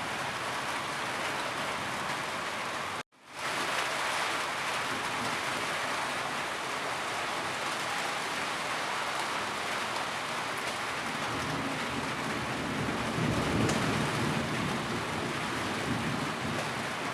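Steady rain falling, an even hiss. It cuts out completely for a moment about three seconds in and fades straight back. A low rumble swells under the rain from about twelve to fifteen seconds in.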